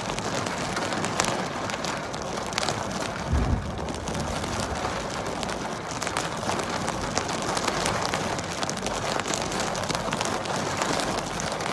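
Rain falling on a car windscreen: a steady hiss filled with many sharp drop hits, with a brief low thump about three and a half seconds in.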